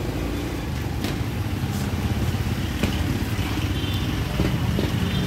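A motor-vehicle engine running steadily, a continuous low sound, with light street noise and a few faint ticks.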